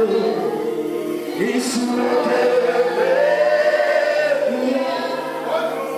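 Worship song: a male voice with a group of voices singing long held notes over sustained musical accompaniment.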